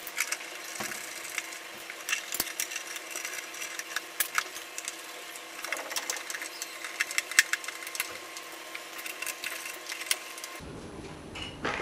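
Irregular clicks, ticks and scrapes of screws being driven with a hand screwdriver to close the wall switch board's plastic cover plate.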